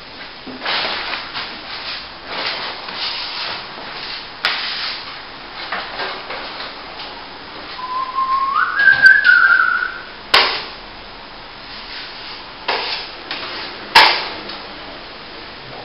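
Repeated scraping strokes of a trowel or brush working wet plaster. Around the middle comes a loud whistle-like tone, lasting about two seconds and rising in two steps. A few sharp taps follow it.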